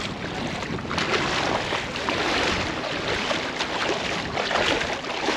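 Shallow seawater sloshing and small waves lapping around someone wading in, with wind blowing across the microphone as a steady rushing hiss.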